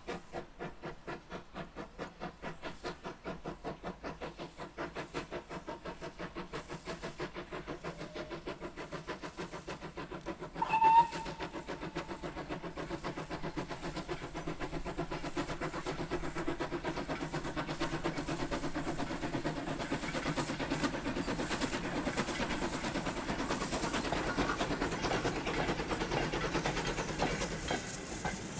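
Lancashire & Yorkshire Railway Class 21 'Pug' 0-4-0 saddle tank steam locomotive working a short goods train, with quick, regular exhaust beats. About eleven seconds in it gives one brief whistle toot, the loudest sound here. The sound then grows fuller and louder as the engine and wagons come nearer and pass, with wheels clattering on the rails, and eases off near the end.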